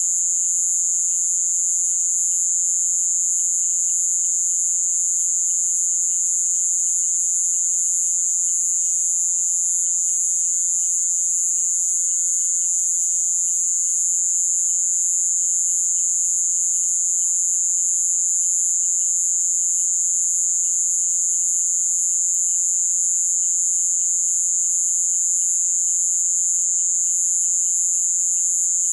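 Amazon rainforest night chorus: a loud, steady, high-pitched shrill of insects, with a lower, rapidly pulsing trill and faint calls beneath it, from insects and frogs.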